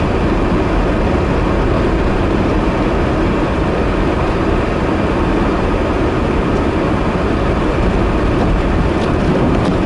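Heavy wheeled snow-clearing machine's engine running steadily as it plows snow along the street: a continuous low, rumbling engine noise.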